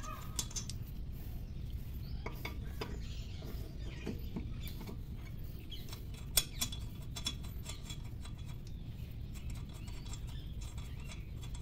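Light metal clicks and scrapes as a loosened wheel nut is unscrewed off its stud on a jacked-up car wheel, with one sharper click about six and a half seconds in.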